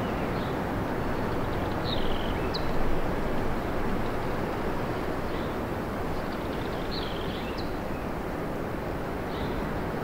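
Steady wind rushing through forest trees, swelling slightly a couple of seconds in. Short high bird calls sound several times over it, some sweeping down in pitch.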